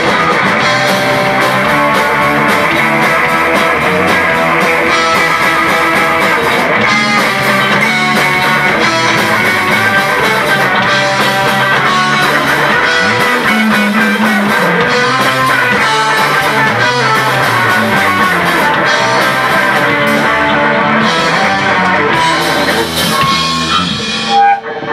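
Live rock band playing loudly and steadily: electric guitar, bass guitar and drum kit. Near the end the full sound breaks up into scattered, uneven hits.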